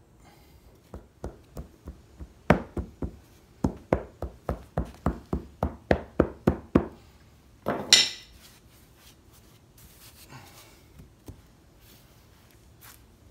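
A small sledgehammer ramming foundry sand into a wooden mould box: about twenty dull knocks at roughly three a second, then one louder, brief noise about eight seconds in.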